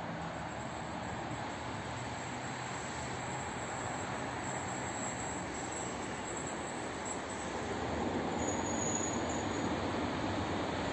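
Approaching passenger train on electrified track, a steady rumble that grows louder from about eight seconds in, with a faint high wheel squeal.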